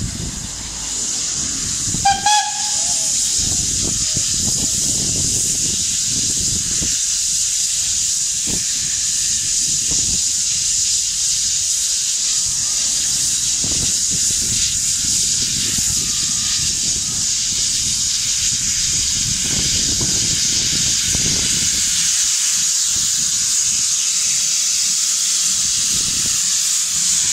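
Polish TKh steam tank engine giving off a loud, steady hiss of escaping steam, with a short whistle toot about two seconds in.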